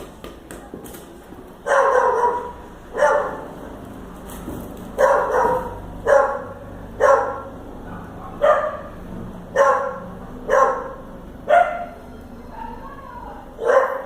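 A dog barking about ten times, roughly once a second, starting a couple of seconds in.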